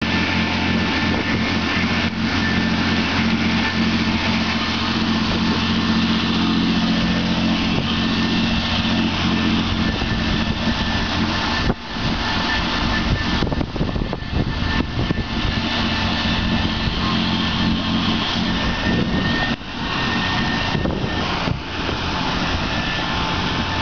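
Motorboat engine running steadily under power over the rush of its churning wake. About twelve seconds in it gives way to gusty wind noise on the microphone.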